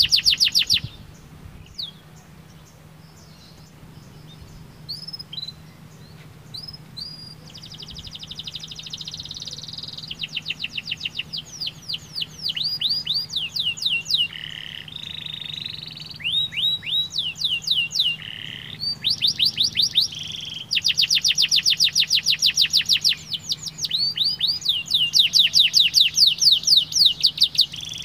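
Domestic canary singing: a few scattered notes after a short pause, then long runs of rapid trills of repeated sweeping notes that grow louder and more continuous in the second half.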